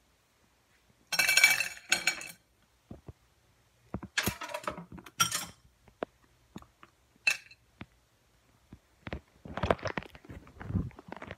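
Hard clinks and clatters of ice and plastic containers being moved about in a freezer, in several short bursts with scattered knocks between.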